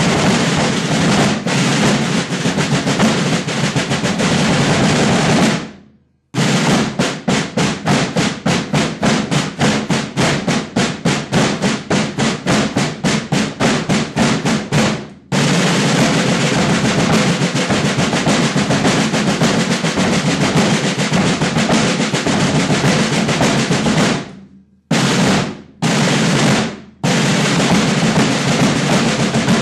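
A rudimental drum line of rope-tension snare drums with bass drums playing rudiments together: a roll that stops about six seconds in, then a run of evenly spaced strokes that grow closer together, then a sustained roll from about fifteen seconds, broken by short bursts near the end.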